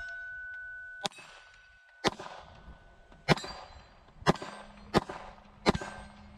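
Glock 19 Gen 5 9mm pistol fired six times at a steady, unhurried pace, about one shot a second, with steel plate targets ringing after the hits.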